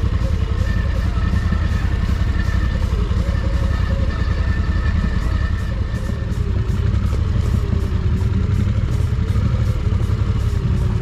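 ATV engine running at low revs, a steady low rumble whose pitch rises and falls slightly as the quad crawls along a rough dirt trail.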